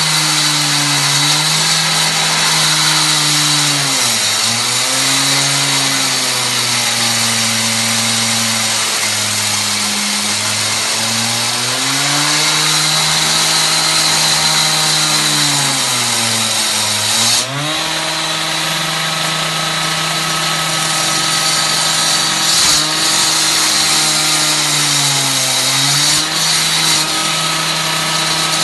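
K12 two-stroke concrete cut-off saw running at high speed, its engine pitch sagging and recovering several times, about every six seconds, with a steady high hiss over it.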